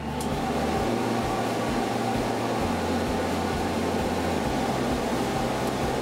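Shop-built metal dust collector's blower running: a steady rush of air over a motor hum. It comes up to speed in the first half second and then holds level.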